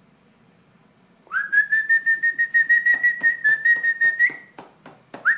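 A person whistling to call a dog: one long steady whistle with a rising start, held about three seconds, then quick short rising whistles near the end. Under it runs a regular series of sharp clicks, about five a second.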